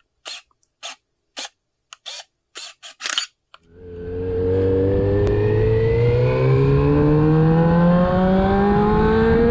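A quick string of about eight short camera-shutter clicks, then a Honda CB400 motorcycle engine comes in about three and a half seconds in, its pitch rising slowly and steadily as the bike accelerates.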